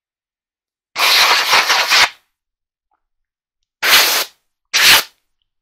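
Compressed-air blow gun giving three blasts of hissing air: one lasting about a second, then two short bursts near the end. This is blowing dust off clothing, an "air bath".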